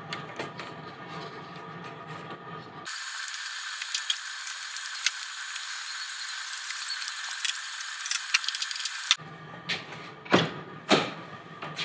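Hand-handling noise from a van's rear-door pop-out window: small clicks and rattles as the window frame and its latch are worked. In the middle there is a stretch of thin, high hiss with ticks, and near the end come two sharp latch clicks about half a second apart.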